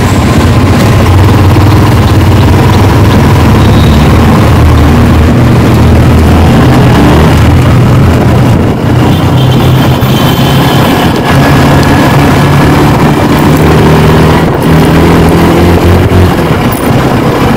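Yamaha R15 sport motorcycle's single-cylinder engine running steadily at cruising speed, with loud wind rush over the microphone.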